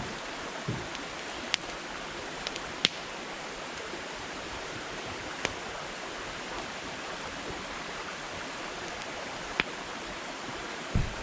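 Wood campfire burning with a steady hiss, broken by a handful of sharp, isolated crackling pops. There is a soft low thud about a second in and another near the end.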